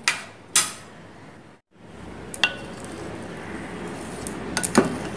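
Two sharp clinks of a spoon against a glass mixing bowl, then, after a brief dropout, chopped salad being stirred in the glass bowl with a spatula: a steady soft churning with a few clinks against the glass.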